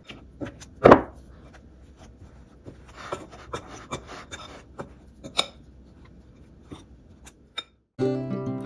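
Pie crust dough being worked by hand in a glass mixing bowl: irregular clicks and scrapes of a fork against the glass as cold butter is mashed into flour, with the loudest knock about a second in. Acoustic guitar music starts suddenly near the end.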